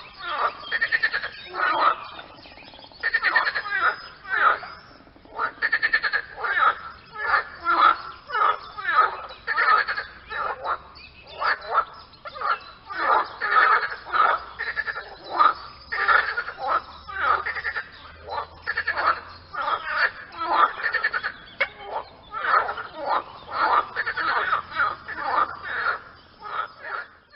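Frogs croaking: a steady run of short croaks, about one or two a second, with a brief lull about two seconds in.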